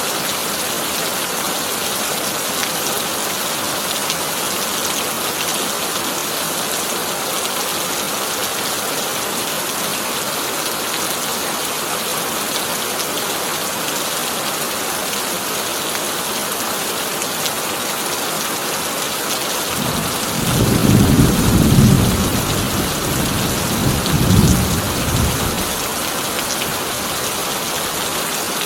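Heavy rain hissing steadily on a tin roof. About two-thirds of the way in, a deep roll of thunder swells up, peaks twice and fades away a few seconds later.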